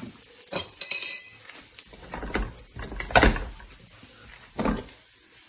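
Stainless-steel pressure cooker being lifted and handled on the gas stove's grates: a series of separate metal knocks and clanks, one ringing briefly as a clink about a second in, the loudest about three seconds in.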